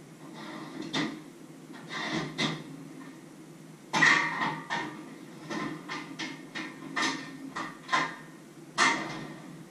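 Irregular knocks and clatters of things being handled in a kitchen, about a dozen over the stretch, the loudest about four seconds in.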